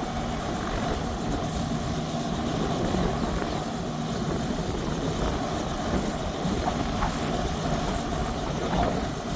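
Helicopter sitting on the pad after landing, its engine and rotor running at a steady idle with an even hum.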